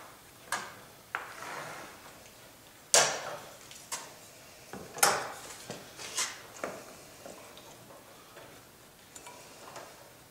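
Sharp knocks and clatters of steel squares and clamps being set down and shifted on a pine board on a workbench. The loudest knock comes about three seconds in, a cluster follows over the next few seconds, and then only faint taps.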